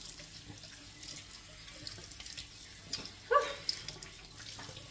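Tap water running into a bathroom sink, with small splashes as a cloth is rinsed and faces are washed. A brief vocal sound cuts in about three seconds in.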